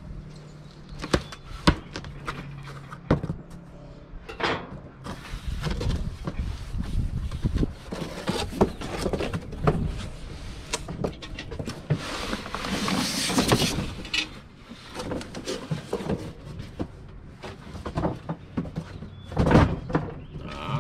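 Cardboard shipping box being opened and handled as a large cast iron Dutch oven is pulled out of it: irregular knocks and thumps of flaps and cardboard, with rustling of cardboard and packing paper, densest about twelve to fourteen seconds in, and a loud thump near the end.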